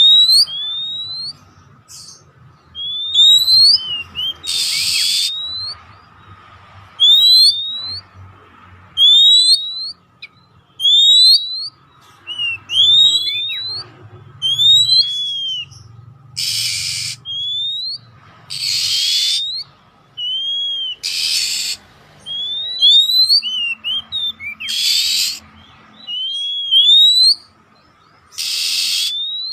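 Oriental magpie-robin (kacer poci) singing: a rapid series of short rising whistled notes, broken every couple of seconds by harsh, rasping calls.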